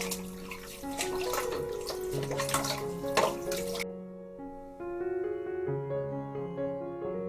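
Running, splashing water over soft background piano music; the water cuts off abruptly a little under four seconds in, leaving only the music.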